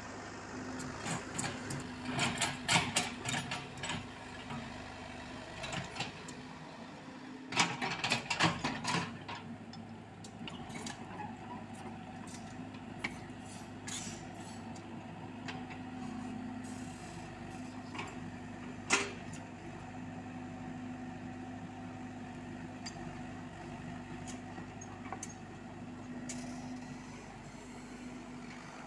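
Komatsu PC78UU mini excavator's diesel engine running steadily while it digs soil. Clusters of knocks and clatter from the bucket working the dirt come about two seconds in and again around eight seconds, with one sharp clank midway.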